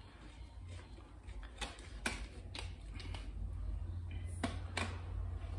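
A handful of separate light clicks and taps as the stainless-steel and plastic sections of a spin mop handle are handled and screwed together.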